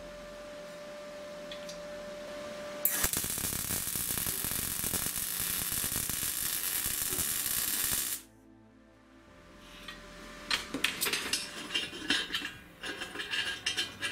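MIG welding arc on steel, a dense crackling hiss that starts suddenly about three seconds in, runs for about five seconds and cuts off abruptly. Later, irregular light metallic clicks and taps of steel parts being handled.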